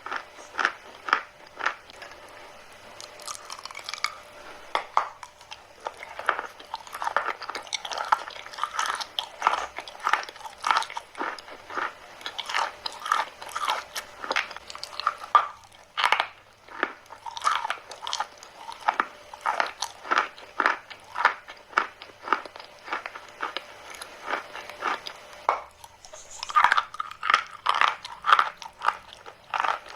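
Chalk being bitten and chewed close up: rapid crisp crunches, several a second, with a few short pauses.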